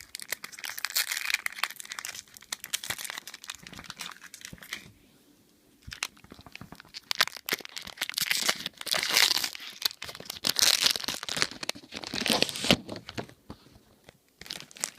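Magic: The Gathering booster pack wrapper being torn open and crinkled by hand, in crackly bursts with a short pause about five seconds in.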